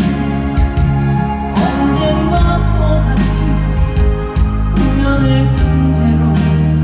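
Live song with a steady drum beat and bass line over the PA, a singing voice coming in at times.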